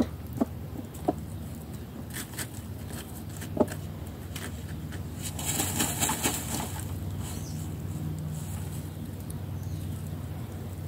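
Broody hen shuffling and ruffling her feathers in the dirt: a few short sharp clicks, then a flurry of rustling about halfway through, over a steady low hum.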